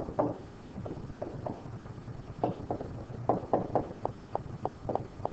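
A pen stylus tapping and scraping against a tablet screen while handwriting, giving a series of short, irregular taps that come thicker in the second half. A low steady hum runs underneath.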